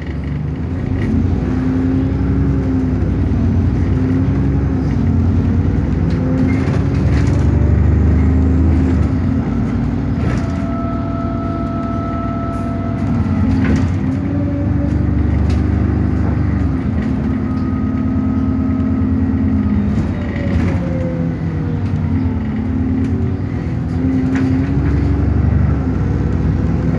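Bus engine and drivetrain heard from inside the passenger saloon as the bus drives, the engine pitch rising and falling several times as it accelerates and changes gear. A faint whine comes in twice around the middle, and light rattles sound over the top.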